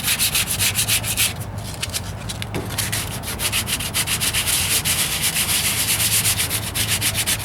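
Rapid back-and-forth hand sanding of filler primer on a truck's steel wheel arch with 220-grit sandpaper on a sanding block, used to smooth out the coarser 150-grit scratches. The strokes ease off for about a second and a half early on, then pick up again.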